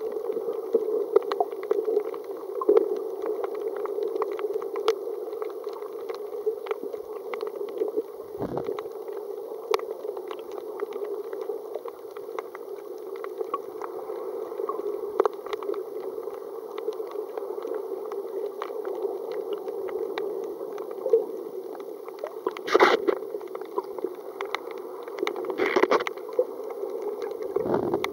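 Underwater sound picked up by a camera submerged over a rocky seaweed reef: a steady muffled water rush with many small crackling clicks throughout, and a couple of louder swishes in the last few seconds.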